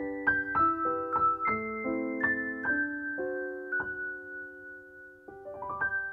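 Background piano music: a gentle melody of single struck notes, ending with a quick rising run of notes near the end that settles into a held final chord.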